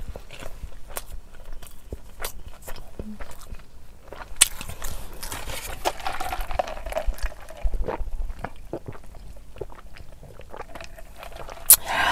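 A person chewing and eating close to the microphone, with frequent small mouth clicks and smacks and a louder, noisier stretch in the middle.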